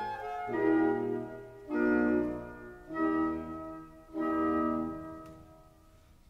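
Background music: four sustained keyboard chords, each struck and then dying away, fading out near the end.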